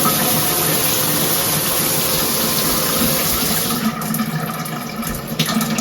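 Shower spray from a hydro-powered LED shower head, a steady hiss, until about four seconds in, when the hiss drops away as the water is shut off, leaving fainter trickling and dripping.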